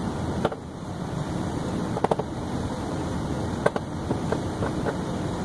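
Soldering iron tip picking and flicking at soldered tab joints on a LiPo battery pack, making a handful of sharp metallic clicks: one about half a second in, a quick cluster around two seconds, another later on with a few lighter ticks. A steady background hiss runs underneath.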